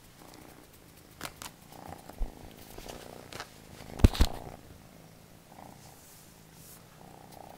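Kitten purring steadily while it plays, with a few short knocks and a louder pair of thumps about four seconds in.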